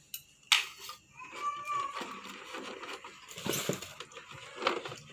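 Hands handling the trimmer's box contents and packaging: a sharp click about half a second in, then intermittent rustling and small knocks, heaviest a little past the middle.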